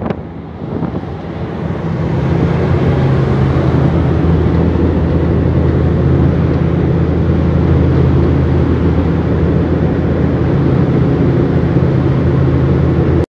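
Passenger ferry's engines running under way, a loud steady low drone with a rushing hiss above it, swelling over the first couple of seconds and then holding level.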